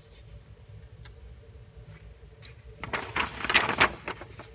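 Paper instruction booklet being handled and its page turned: a crackling paper rustle of about a second and a half, starting near three seconds in, over a low steady hum.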